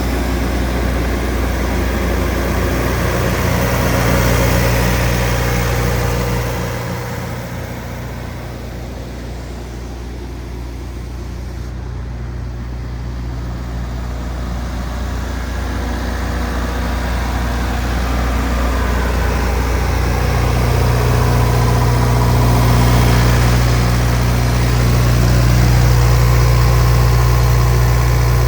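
Cummins QS85-G8 diesel engine of a Wacker Neuson G100 generator set running steadily inside its sound-attenuated enclosure. It holds an even pitch throughout, growing fainter for a few seconds about a quarter of the way in, then louder again toward the end.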